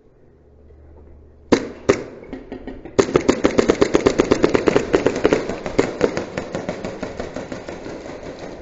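Airsoft guns firing: two single shots about a second and a half in, then a long burst of rapid automatic fire from about three seconds in that grows fainter toward the end.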